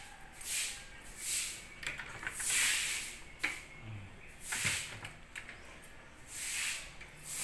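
Plywood kitchen cabinet door being swung open by hand, with a few light clicks and a couple of soft knocks from the door. Over it, a hissing noise swells and fades every second or two and is the loudest sound.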